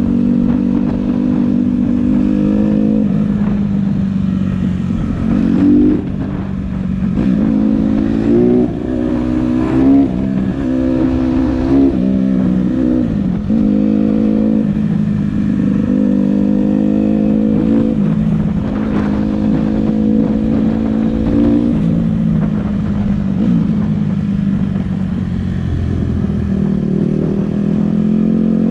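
Honda CRF150R dirt bike's single-cylinder four-stroke engine running while ridden, its pitch repeatedly climbing and dropping back as the throttle is opened and the gears are worked, most often between about five and fourteen seconds in.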